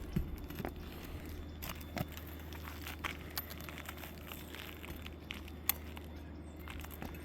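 Scattered scrapes, clicks and crackles of hand tools working between brittle asphalt roof shingles to pull out roofing nails, with one sharper click a little before the six-second mark. A steady low hum runs underneath.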